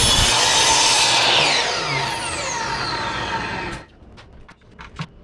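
Electric miter saw cutting through a wooden log siding board, then the blade winding down with a falling whine once the cut is done. The sound stops abruptly nearly four seconds in, leaving a few faint clicks.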